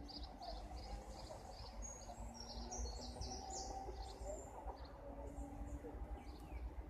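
Small birds chirping: a run of short high chirps, about three a second, then a brief flurry of higher notes, over a faint steady low rumble.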